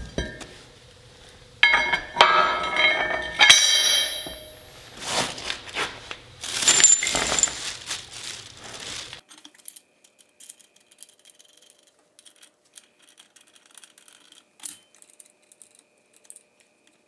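Steel parts clinking and clanking with a bright metallic ring as a U-bolt and its hardware are handled and fitted on a truck's camelback leaf-spring suspension. The clanks are loudest in the first half; after about nine seconds they give way to faint light clicks.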